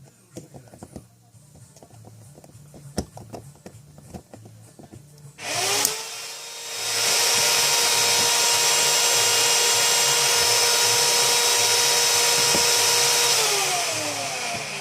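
Light clicks and taps of handling for the first few seconds, then a cordless drill/driver's motor spins up, runs at a steady speed with a steady whine, and slows down and stops near the end.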